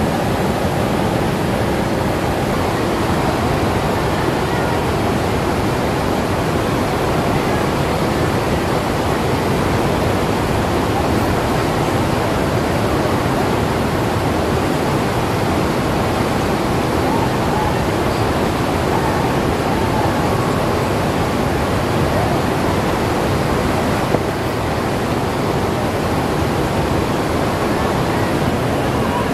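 Fast river current rushing over rapids and a low weir, a loud, steady wash of water noise.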